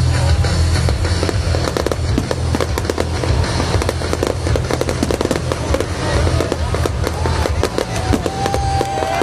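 Fireworks bursting and crackling in rapid, dense succession over loud rock music with heavy bass playing through a stadium sound system.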